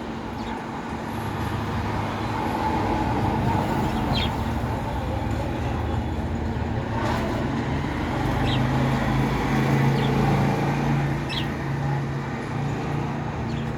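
Steady rumble of a motor vehicle or road traffic, swelling louder through the middle, with a few short high chirps over it.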